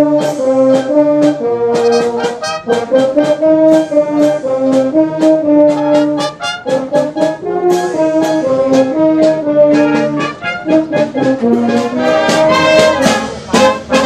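Wind band of brass instruments, saxophones and clarinets playing a tune in short, detached notes over a steady beat.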